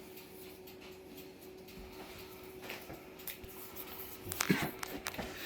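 Hands laying mint leaves onto raw pork, making faint rustling and light handling clicks, with a brief louder rustle about four and a half seconds in. A faint steady hum runs underneath.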